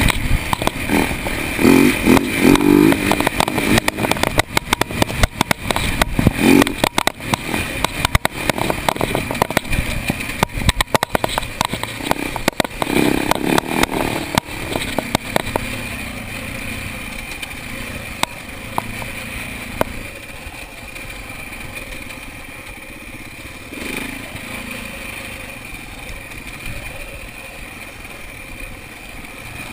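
Dirt bike engine revving up and down under the rider's throttle, with frequent sharp knocks and rattles from the bike over the rough trail. About halfway through it settles into a quieter, steadier run.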